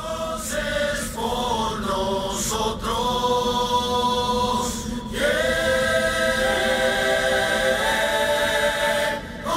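Choir voices singing held chords. A few short phrases come first, then one long chord is held for about four seconds and breaks off near the end.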